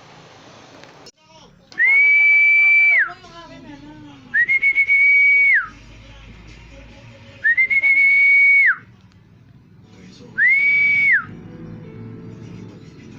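Loud whistling: four long high notes about three seconds apart, each starting with a quick stutter, holding one steady pitch for about a second, then sliding down at the end.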